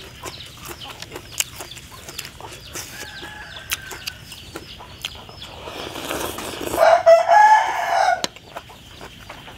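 A rooster crows once, about six seconds in, a call of about two seconds and the loudest sound here. Around it, small clicks and taps of a spoon and fork against a metal tray as noodles are eaten.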